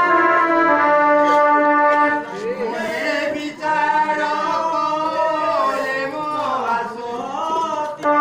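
Loud stage music through a PA speaker: held brass-like chords, then from about two seconds a melody that wavers and bends in pitch over them, until the steady chords return at the end.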